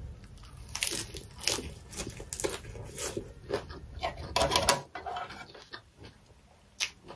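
Close-up crunching and chewing of a mouthful of raw leafy greens wrapped around mutton. Crisp crunches come about twice a second, then die down after about five seconds.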